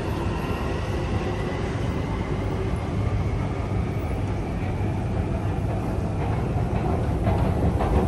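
London Underground Jubilee line train pulling out of the platform, its motor whine climbing slightly in pitch and fading over the first two seconds. A steady low rumble of station machinery and escalators runs underneath, with a few light clicks near the end.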